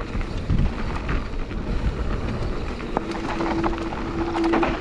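Mountain bike rolling down a dirt trail, heard through a GoPro: wind buffeting the microphone and tyre rumble with clicks and rattles from the bike, and a steady mid-pitched whine for about a second and a half near the end.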